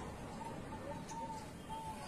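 Faint, short cooing notes of zebra doves: a few soft, level tones over a light background hiss.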